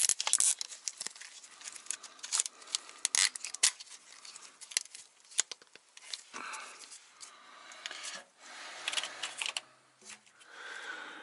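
Gloved hands handling wiring harness, plastic wire loom and lines under a truck cab, making many sharp clicks for the first few seconds and then rustling in the second half.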